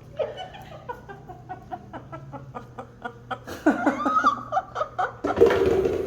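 Parrot laughing in a quick run of short notes, then louder calls that bend up and down, with a loud burst near the end.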